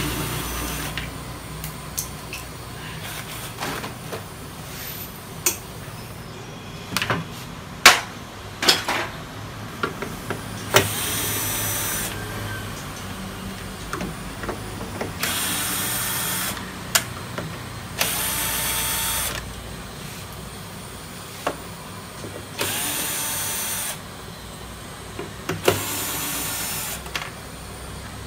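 Cordless drill-driver backing screws out of a TV's plastic back cover in five short runs of about a second each. Before the first run come scattered sharp clicks and knocks of handling.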